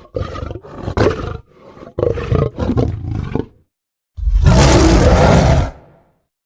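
Spinosaurus creature sound effects: a run of short growls in the first few seconds, then one long, loud roar about four seconds in.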